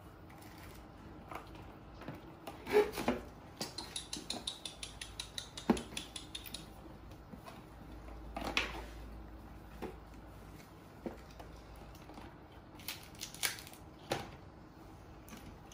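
Small clicks, knocks and rustles from baby macaques eating fruit and shifting about on plastic chairs. A couple of sharper knocks come about 3 and 6 seconds in, and a quick run of fine ticks lasts about three seconds from around 4 seconds in.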